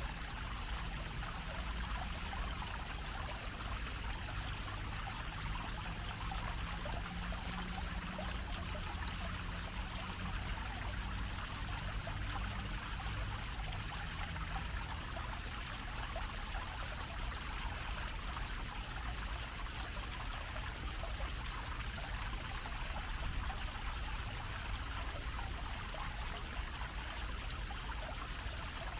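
A park fountain's low dome of water splashing steadily onto its grated basin, an even rush of falling water with a low hum underneath.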